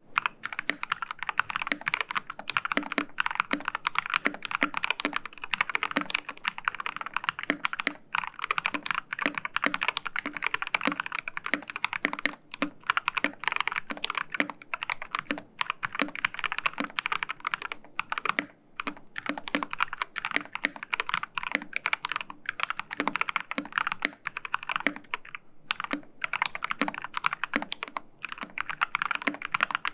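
Steady fast touch-typing on a Dark Project KD83a mechanical keyboard: factory-lubed Dark Project g3ms Sapphire linear switches in a steel plate with silicone dampening, under CSA PBT double-shot keycaps, giving a continuous stream of key strikes with a few brief pauses.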